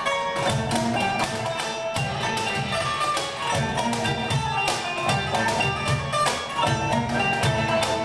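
Live Turkish ensemble music: oud and other plucked strings with violins and cello over hand percussion keeping a steady beat.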